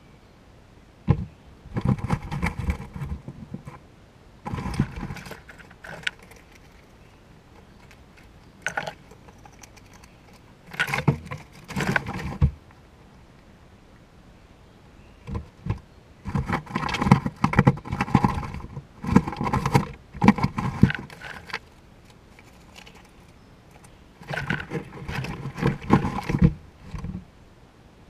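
Peanuts in their shells rattling and knocking against the floor and walls of a wooden feeder house, close to the microphone, in irregular bursts of a second to several seconds. The sound is a small animal rummaging through the peanuts.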